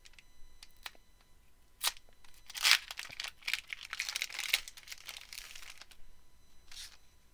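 Foil trading-card pack wrapper being torn open and crinkled by hand. A few light clicks and a sharp crackle come first, then several seconds of dense crinkling, with one more crackle near the end.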